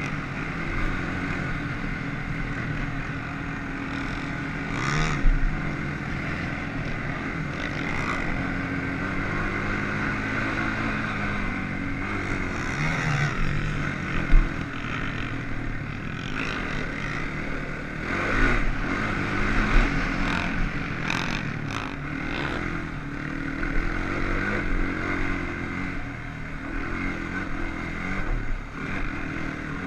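Quad bike engine running and revving up and down as it is ridden over a bumpy dirt track, with a few sharp knocks from the bumps, the loudest about halfway through.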